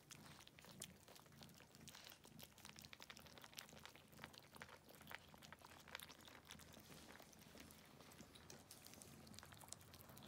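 Kittens chewing and eating from a shared bowl: faint, quick, irregular crunching clicks.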